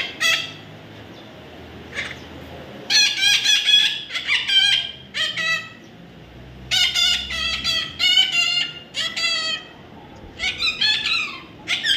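Parrot calling: several runs of quick, repeated harsh calls with short pauses between.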